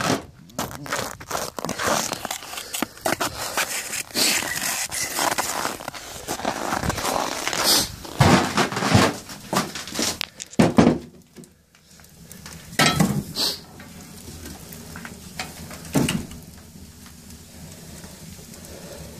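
Split firewood being gathered and handled: a busy run of wooden clatter, knocks and rustling, thinning out in the second half to a few separate knocks of log on log.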